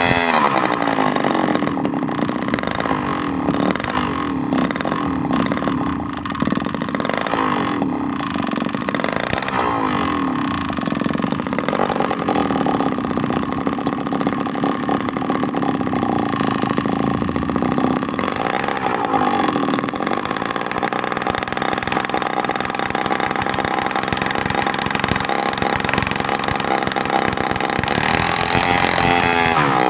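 Homemade mini two-stroke engine built from a refrigerator compressor, running and revving. Its speed rises and falls several times, holds steadier through the middle, then revs up again near the end.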